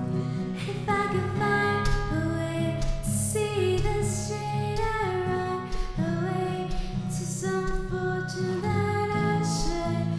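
A woman singing a cover song over acoustic guitar.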